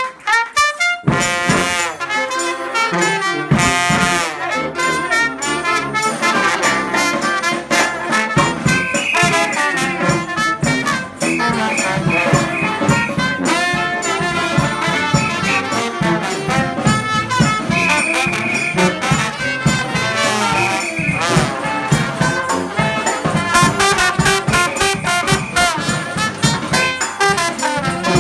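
New Orleans-style brass band playing an instrumental passage: trumpets and trombones carrying the tune over a steady drum beat.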